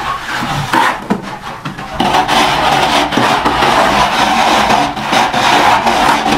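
Steel plastering trowel scraping and working cement mortar against a brick wall and mortar tray, a rough continuous rasping that grows louder and steadier about two seconds in.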